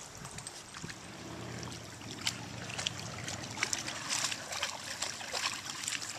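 Dogs wading in shallow lake water at the shore, with water lapping and trickling. From about two seconds in there is a quick patter of small splashes and wet clicks, several a second.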